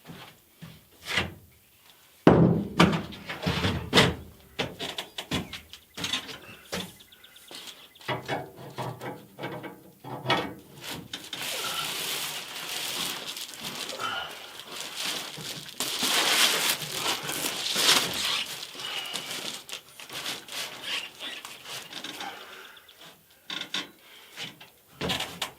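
Knocks, clatter and scraping as a length of electrical conduit is handled and fitted into place against the framing. A denser stretch of scraping and squeaking runs through the middle.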